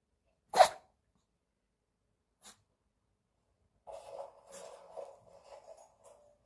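A poodle sneezing: one sharp, loud sneeze about half a second in and a much fainter short one about two seconds later. From about four seconds in comes a softer, continuous stretch of sound.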